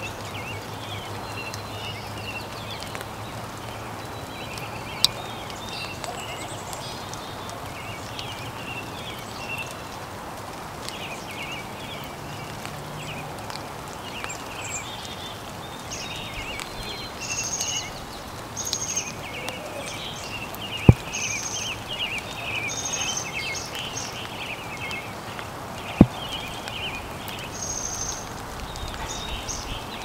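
Small songbirds chirping and twittering in quick, overlapping short notes over a steady outdoor hiss. In the second half, short high buzzy notes repeat every second or two, and there are a couple of sharp clicks.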